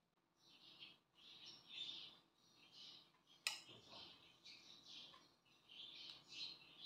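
Faint, repeated chirping of small birds in the background, with one sharp click about three and a half seconds in.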